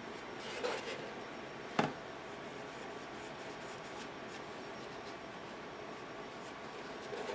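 Faint rubbing and handling noises of hands turning a decorated tissue box on a craft table, with one sharp tap a little under two seconds in.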